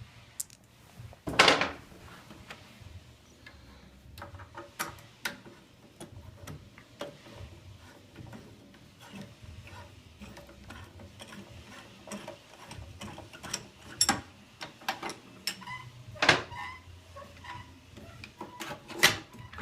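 Scattered clicks and knocks of Aeron office chair parts and screws being handled during disassembly, with a louder knock about a second and a half in and more near the end.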